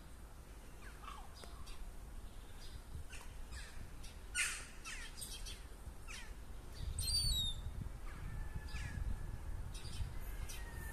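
Birds calling: a run of short sharp calls and downward-sliding notes, with a few high chirps about seven seconds in, over a low rumble that grows louder from about seven seconds on.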